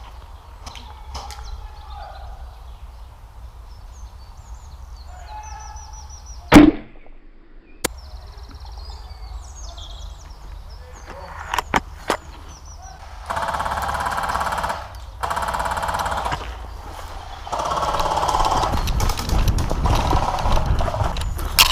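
A single sharp crack about six and a half seconds in, the loudest thing here, typical of a Novritsch SSG24 spring-powered airsoft sniper rifle firing. A few lighter clicks follow, and later there are stretches of louder rustling noise.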